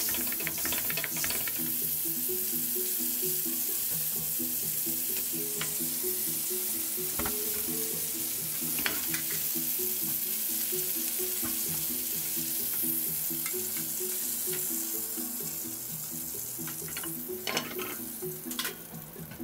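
Pork loin chops sizzling steadily in butter and olive oil in a frying pan, with soft background music under it. Near the end come a few sharp knocks as the chops are lifted out of the pan.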